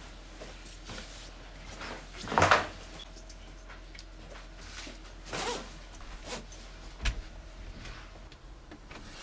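Rustling of a padded coat with one loud rasping zip-like pull about two and a half seconds in, more rustles later, and a single sharp click about seven seconds in, over a low steady hum.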